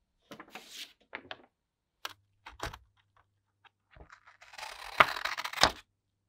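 Paper rustling as a printed sheet of transfer paper is handled, a few sharp clicks, then scissors cutting through the transfer paper, with two sharp snips near the end.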